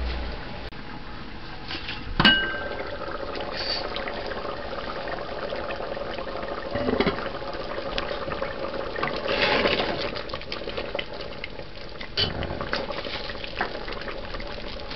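Thick brown-stew gravy bubbling at a boil in an aluminium pressure-cooker pot, the flame turned up to thicken it. About two seconds in there is one sharp, ringing metal clank as the lid is taken off, and later a few clinks as a metal ladle stirs.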